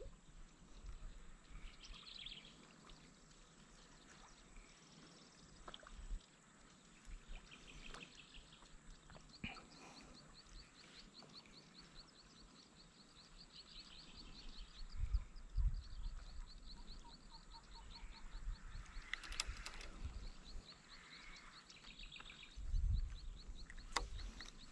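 Quiet pond-side ambience: birds chirping, with a long, even run of high chirps through the middle and later part, and a few gusts of wind rumbling on the microphone.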